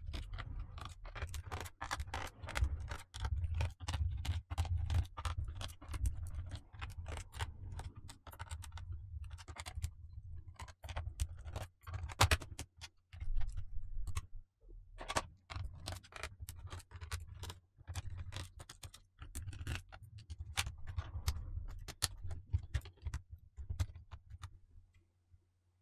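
Screws being taken out of the plastic bottom case of an Acer Aspire E1-522 laptop: a long, irregular run of small clicks, ticks and scrapes from a screwdriver and handling, with a few brief pauses.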